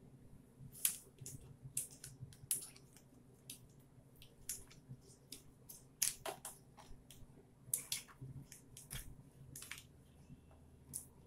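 Flat plastic bubble-remover tool poked down the inside of a glass canning jar packed with zucchini slices, knocking and scraping against the glass and the slices in a run of irregular sharp clicks.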